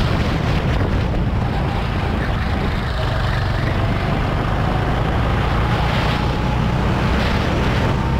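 Go-kart engine running, buffeted by wind noise on the microphone. Its pitch climbs slowly through the second half as the kart accelerates.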